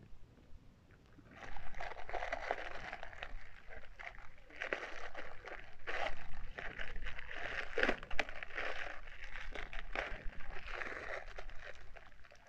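Bubble wrap and plastic bags crinkling and rustling as they are handled and pulled open. The crinkling starts about a second in and goes on almost without a break.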